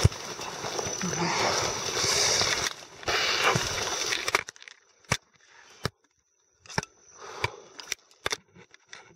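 Grass and reed stems brushing and crackling against the camera as someone pushes through dense marsh vegetation. A thick rustle for about four seconds, then scattered single snaps and cracks with quiet between.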